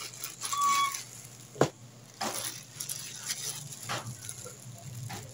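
Thin plastic bread bag crinkling and rustling in several short bursts as a sliced loaf is handled and the bag is closed, with one sharp click about a second and a half in and a brief high note about half a second in.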